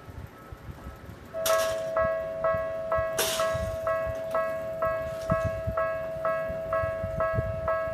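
Japanese railroad crossing alarm starting up about a second and a half in, ringing its repeated clang about twice a second over a steady tone, which signals a train approaching the crossing. Two short bursts of hiss come near its start.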